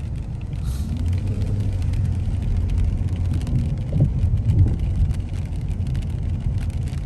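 Car driving on a wet city street, heard from inside the cabin: a steady low rumble of engine and tyres, with a couple of brief bumps about four seconds in.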